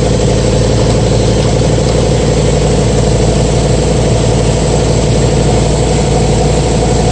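1965 Ford Mustang engine idling steadily.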